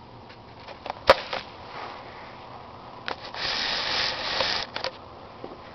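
Kirby upright vacuum pushed across carpet with its motor not running: a sharp click about a second in, a few lighter clicks, then a rushing, scraping noise for about a second and a half.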